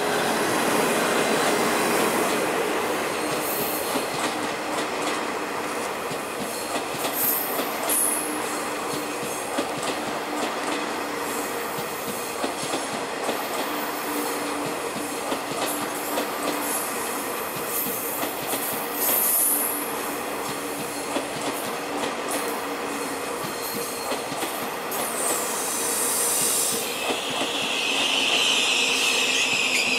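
Taiwan Railway EMU3000 trainset, hauled by the E237 electric locomotive, rolling slowly past the platform as it arrives, with steady wheel-on-rail noise. Brief high squeals come twice in the middle, and a strong, sustained high wheel squeal starts near the end.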